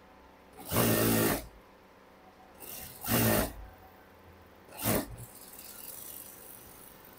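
Industrial lockstitch sewing machine stitching in three short runs: the first about a second in, the second about three seconds in, and a very brief one about five seconds in.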